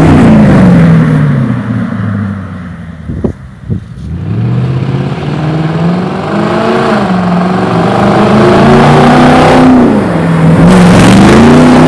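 Infiniti FX45's 4.5-litre V8 through an aftermarket exhaust, revving up and down. The revs fall away at the start, two sharp cracks come about three seconds in while it is quieter, then the engine climbs again, swings, and holds high near the end.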